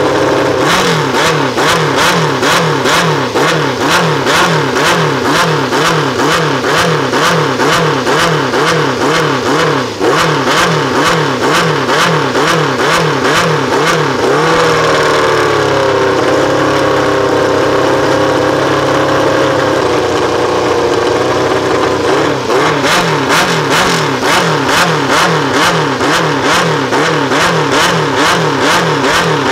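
The Tyrrell 002's Cosworth DFV V8 is being warmed up at a standstill and blipped by hand at the throttle linkage, revving up and dropping back about twice a second. Midway it settles to a steady idle for about seven seconds, then the quick blips start again near the end.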